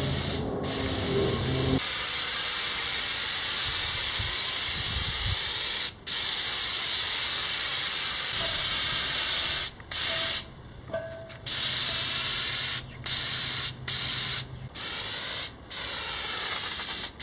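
Compressed-air paint spray gun with a top-mounted cup hissing steadily as it sprays paint. The hiss stops and starts in short breaks several times in the second half as the trigger is released.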